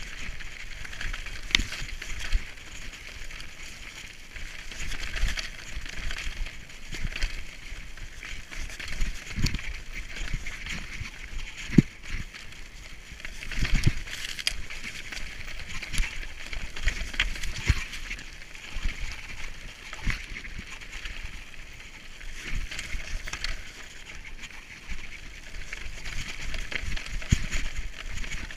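Mountain bike descending a rocky gravel trail at speed: tyres crunching over loose stones, with the bike clattering and knocking over bumps, the sharpest knock about twelve seconds in. Wind rumbles on the microphone throughout.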